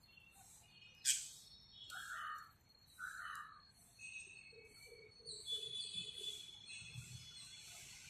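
Birds chirping and calling in short scattered notes. A sharp brief call about a second in is the loudest, and two harsher calls follow at about 2 and 3 seconds.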